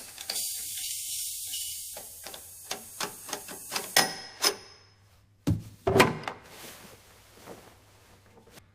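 A high hiss at first, then a string of sharp clicks and knocks, and two heavy thuds close together about five and a half seconds in.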